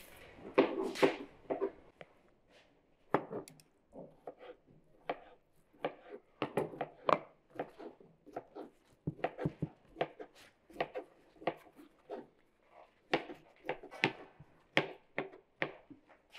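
Food-preparation sounds on a wooden cutting board: irregular light knocks and taps, a few a second with short pauses, as lavash rolls are filled.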